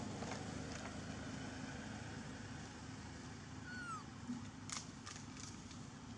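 A macaque gives one short, high, bending squeak about four seconds in, followed by a few sharp clicks, over a steady low hum.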